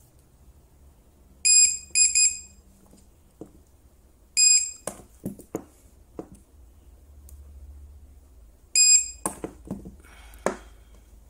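Mini DIY spot-welder control board, set to maximum energy 99, beeping high-pitched several times. Twice a beep is followed by a few sharp cracks as it fires weld pulses through the probes into a 0.2 mm brass strip stacked on a 0.2 mm nickel strip.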